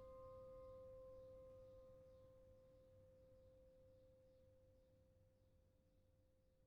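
A bell's ring dying away: one steady tone whose higher overtones fade out first, the whole sound growing steadily fainter until it is barely heard.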